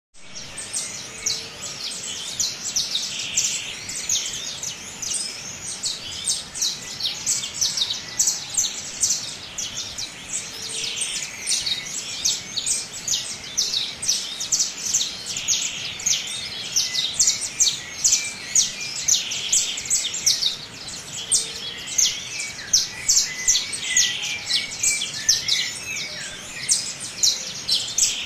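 A flock of small birds chirping continuously in a garden, with many short, high chirps overlapping one another.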